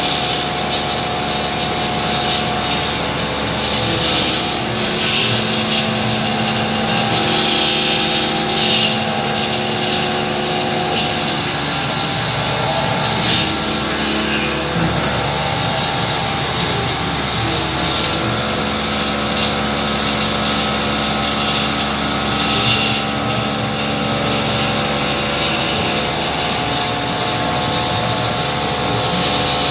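Homemade CNC milling machine cutting a plate with an end mill under flood coolant: steady spindle and cutting noise, with whining tones that shift in pitch every few seconds as the machine moves.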